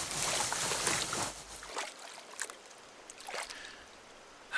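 Water sloshing and splashing for about a second and a half, then stopping, followed by a few faint small splashes and drips.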